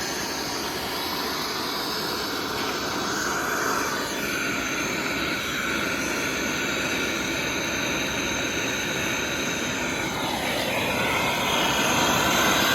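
A refrigeration brazing torch blowing a steady, jet-like flame into the wood of a bonfire to get it to catch. It grows a little louder about ten seconds in.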